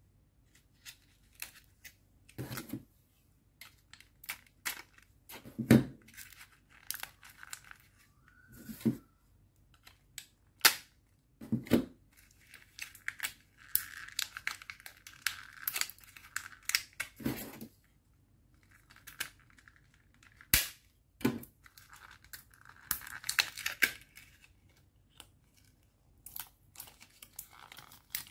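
Thin clear plastic blister packaging being torn open and crumpled by hand: irregular crinkling and crackling, broken by sharp snaps and clicks.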